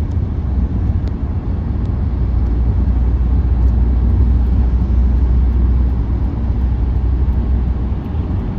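Steady low road-and-tyre rumble inside a moving car's cabin at freeway speed, swelling a little in the middle and easing again toward the end.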